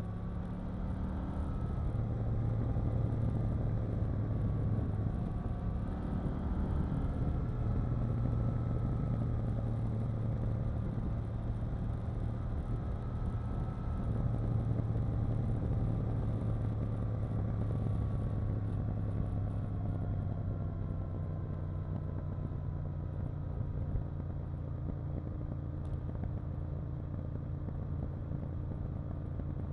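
KTM 890 Duke R parallel-twin engine running at moderate, fairly even revs, its pitch rising and falling gently. About two-thirds of the way through the pitch drops and settles lower and steadier.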